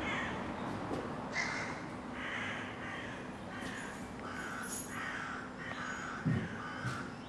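Crows cawing over and over, short calls about two a second, over a steady low hum, with a couple of dull thumps near the end.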